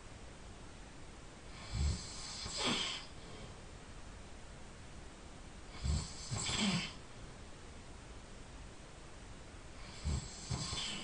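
A sleeping person snoring, three breaths about four seconds apart: each a short, low snore followed by a longer, breathy rush of air.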